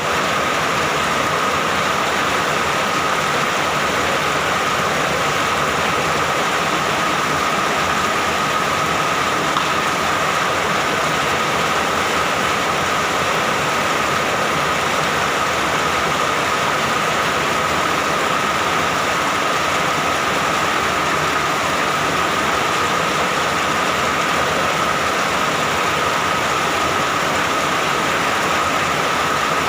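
Steady, heavy rain falling, an even unbroken hiss with a constant high tone running through it.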